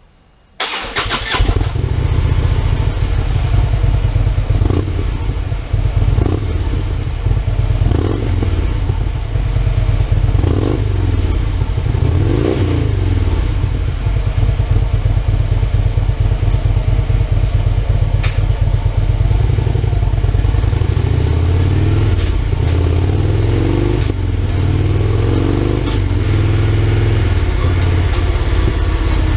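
Harley-Davidson Road Glide V-twin starting about half a second in through Fuel Moto E-Series mufflers with 9 baffle discs on the stock head pipe, then running loud with its pitch rising and falling repeatedly under the throttle.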